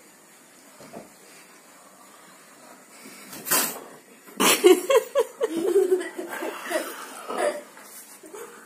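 A frightened cat hiding in its cat house hisses sharply twice at the masked face, then growls in a wavering voice for a few seconds.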